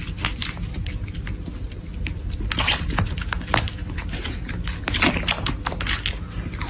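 Kittens suckling at a hand-held milk bottle: irregular short clicks and smacks over a steady low hum.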